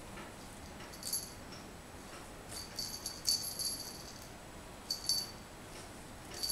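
Small bell on a cat toy jingling in short bursts as the toy is handled: once about a second in, several times around the middle, and again near the end.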